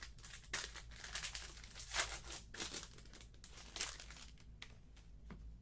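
Packaging crinkling and rustling in short irregular bursts as sealed trading-card boxes and packs are torn open and the cards handled.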